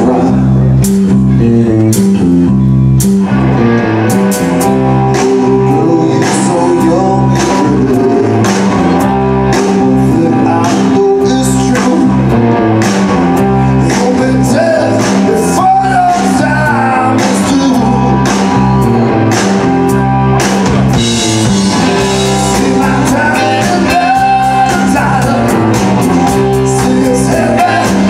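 Live rock band playing: electric guitars, bass guitar riff and drum kit keeping a steady beat, with a male lead singer singing over it.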